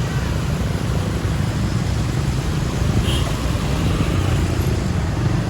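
Roadside traffic noise: a steady low rumble of passing road vehicles, engines and tyres, with no horn sounding.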